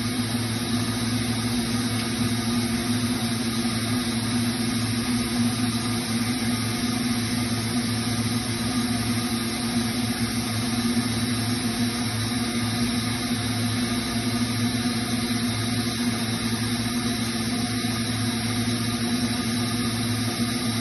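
Thermoforming machine's motors and pumps running steadily: an even low hum with a faint hiss, unchanging throughout.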